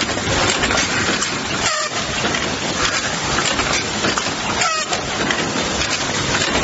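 Automatic LED bulb assembly machine running: a steady, loud, hiss-like machine noise that dips briefly twice, about three seconds apart.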